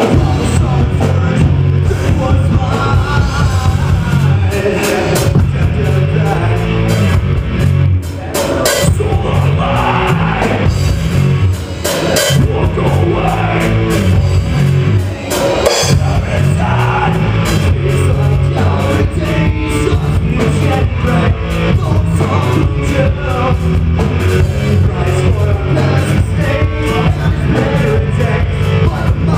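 Rock band playing loud live music: a pounding drum kit with electric guitar and bass, filling the room.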